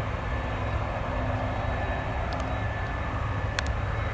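Boeing 747-200 freighter's jet engines running at low power as the aircraft rolls along the runway after landing: a steady rumble with a constant whine on top.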